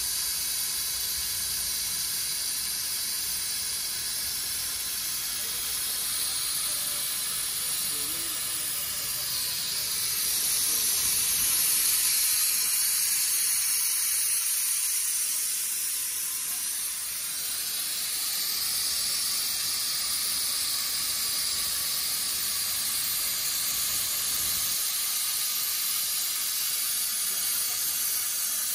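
Hồng Ký HKCUT60 plasma cutter's torch cutting through metal plate: a steady, loud hiss of the plasma arc and its air jet, swelling a little louder for several seconds in the middle.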